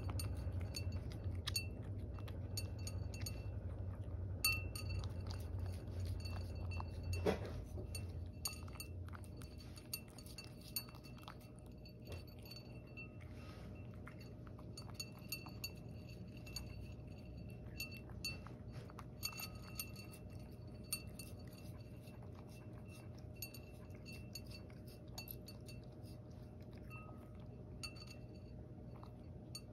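A cat eating from a ceramic bowl: irregular light, ringing clinks as its collar knocks against the bowl, with soft chewing. A low background hum stops about eight seconds in.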